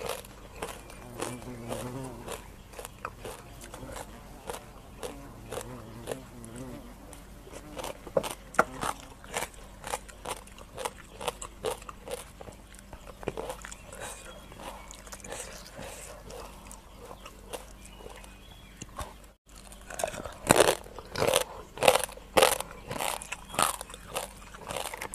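Close-miked chewing and crunching of raw rice-field crab and green papaya salad, irregular crisp crunches, denser and louder after a brief gap near the end.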